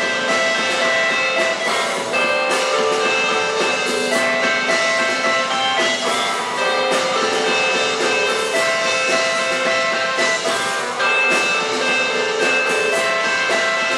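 Live rock band playing: two amplified Stratocaster-style electric guitars over a Ludwig drum kit with steady cymbal hits.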